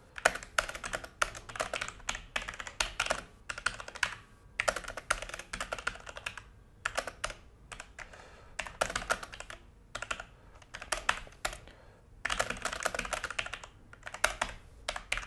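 Logitech G413 mechanical keyboard being typed on: quick flurries of key clicks with brief pauses between bursts, as code is entered.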